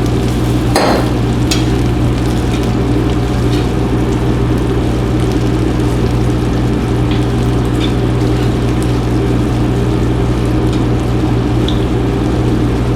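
Pasta stirred into a pan of cheese sauce sizzling on the stove, with a sharp knock about a second in and a few light utensil clicks, over a steady low hum.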